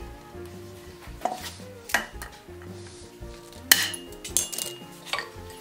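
Sharp metal clinks and clanks of steel hand tools and iron parts being handled at an anvil, one louder ringing clank a little past halfway. Soft background music underneath.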